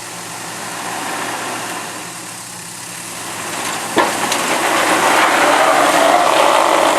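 Off-road truck engine running at low speed, then a sharp knock about four seconds in, after which the engine grows louder.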